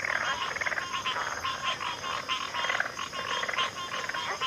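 A chorus of many frogs calling at once from a backwater: dense, overlapping rapid pulsed calls that never let up, with a steady high-pitched drone beneath them.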